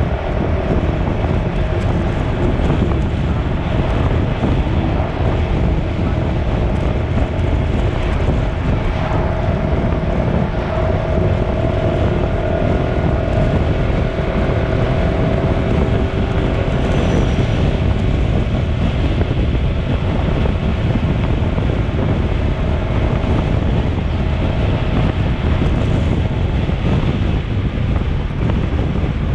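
Steady low rumble with wind noise on the microphone, holding an even level throughout, with a faint steady hum in it through the first half.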